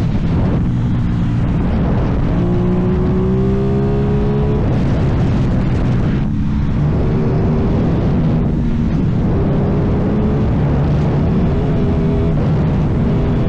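Aprilia Tuono 660 parallel-twin engine running through an aftermarket exhaust while riding: the engine note climbs under acceleration, drops sharply as the revs fall, then climbs again, over a constant rush of wind and road noise.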